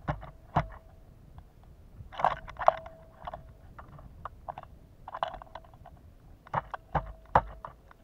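Pileated woodpecker pecking at a block of suet through a wire suet cage: irregular sharp knocks in small clusters, several of them setting the metal cage ringing briefly.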